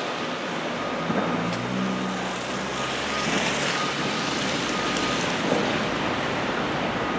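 Road traffic on a wet, snowy road: a steady rush of engines and tyres on slush, with a low engine hum in the first few seconds and a hiss that swells about three seconds in as a vehicle passes.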